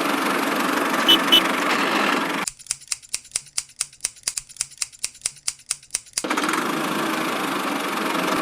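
Steady machine running noise that cuts out abruptly after about two and a half seconds. For nearly four seconds only rapid, regular clicking follows, about five clicks a second, and then the running noise returns.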